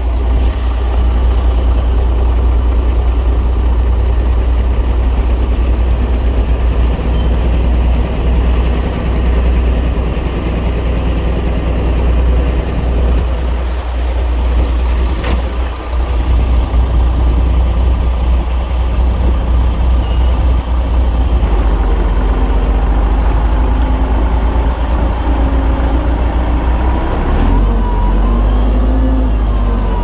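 Loud heavy diesel engine of earthmoving machinery running continuously with a deep rumble; a single sharp click about halfway through, and the engine pitch shifts near the end.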